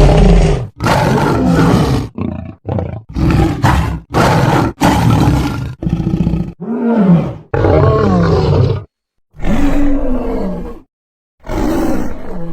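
Cat-like cartoon monster sound effects: a string of about a dozen short roars and growls, each lasting up to a second and a half, cut one after another with brief gaps. Several bend up and then down in pitch.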